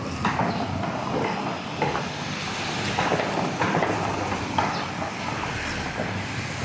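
Footsteps at a walking pace, about two soft steps a second on paving stones, over steady street noise from cars moving slowly nearby.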